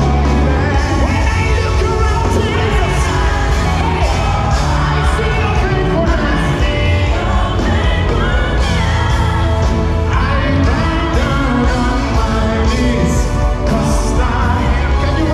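Live gospel worship song: several singers on microphones with a band of drums and electric guitar, amplified through a concert PA with a heavy bass.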